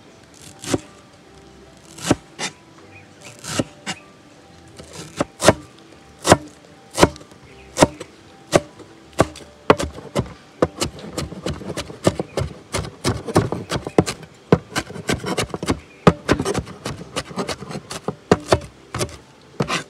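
Cleaver chopping coriander leaves on a plastic chopping board: single knocks spaced a second or so apart at first, quickening about halfway into fast, steady chopping.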